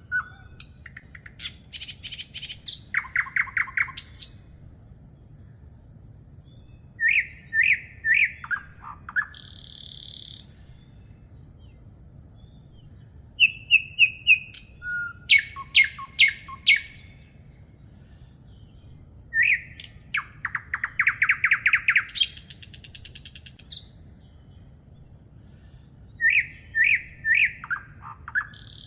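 Songbirds singing in turn: repeated clear whistled phrases, fast trills and short high buzzy notes, with small high chirps in between, over a faint steady background.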